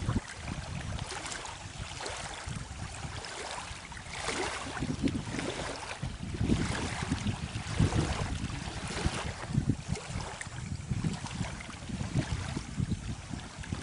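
Small lake waves lapping on a shore, in irregular splashing surges a second or two apart.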